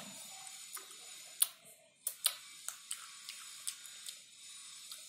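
Wet mouth clicks and lip smacks from eating an ice cream bar and sucking its wooden stick: a series of sharp, irregularly spaced clicks.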